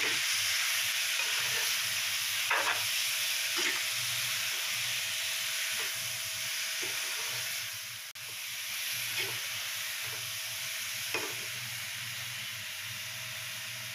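Shredded winter melon sizzling in oil in a metal karahi while a steel spoon stirs it, with a few sharp scrapes of the spoon against the pan.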